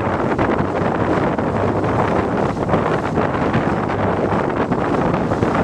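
Steady wind blowing across the microphone over open water, with a low hum underneath.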